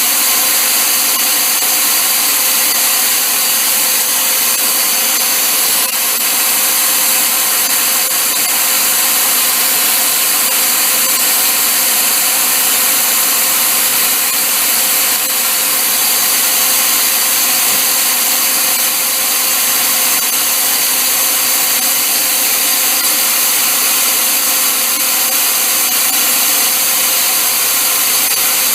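A power tool running steadily and without a break, a high, even whine.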